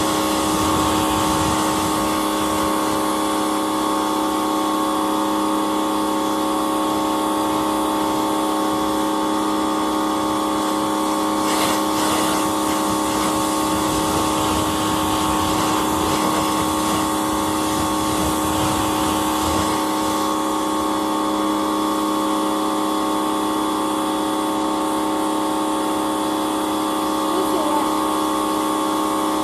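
Electric pressure washer running steadily: its motor-driven pump hums at a constant pitch under the hiss of the high-pressure water jet spraying the truck's grille and hood.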